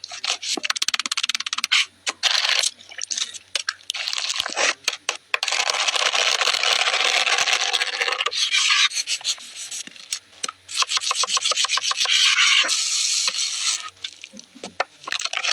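Rough rubbing and scraping in long strokes of a few seconds each, with runs of rapid clicks between them.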